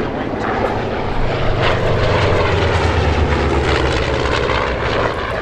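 Piston-engined propeller aircraft flying past, its engine drone swelling to a peak a couple of seconds in and easing off toward the end.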